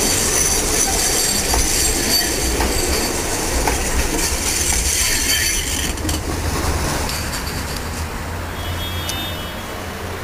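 Ganz articulated tram running past on steel rails, its wheels squealing with a steady high-pitched tone over a low rumble. The squeal dies down about six seconds in, leaving a quieter rumble.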